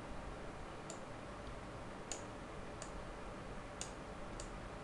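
Computer mouse clicking: about five short single clicks, unevenly spaced, over a faint steady hiss.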